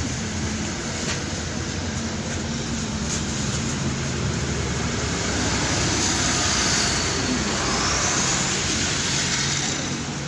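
Inside a BKM-62103 tram: a steady rumble and hum, with a high electric whine that dips and rises a little past the middle as the noise swells slightly.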